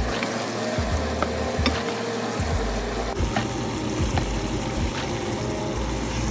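Food sizzling and frying in a pan, a steady hiss with a few short sharp clicks scattered through it.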